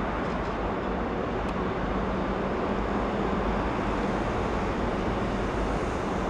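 Steady, even background noise of road traffic, with a faint low hum.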